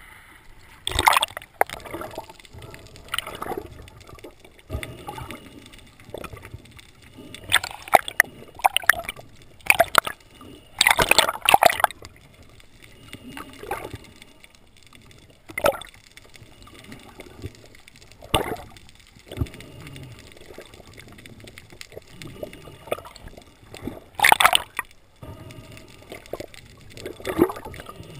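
Seawater gurgling and sloshing against a camera at the surface and underwater, with irregular loud bursts of splashing and bubbling every few seconds.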